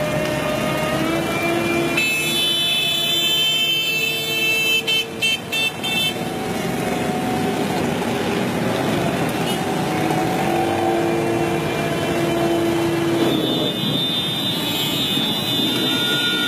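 Diesel engine of a Caterpillar 226 skid-steer loader running, its pitch rising and falling as the loader lifts and tips its bucket.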